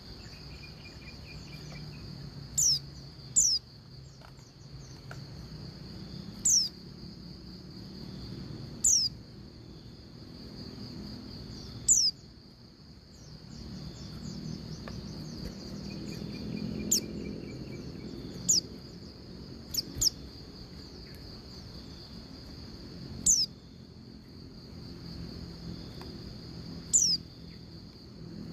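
Female pleci (white-eye) calling: short, sharp chirps that slide downward, about ten of them spaced a few seconds apart. A steady high-pitched insect-like buzz runs underneath.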